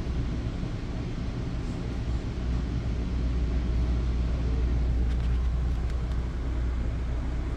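Steady low hum inside a Bombardier MultiLevel commuter coach while the train stands at a station.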